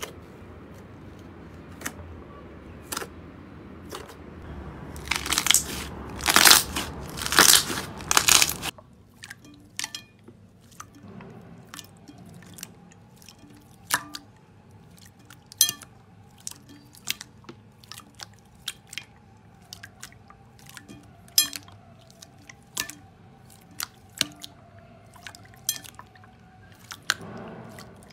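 Hands squeezing and pressing slime. White slime in a plastic tub crackles in loud bursts through the first nine seconds. Then clear purple slime gives scattered sharp pops and clicks, about one or two a second, as it is patted and pressed.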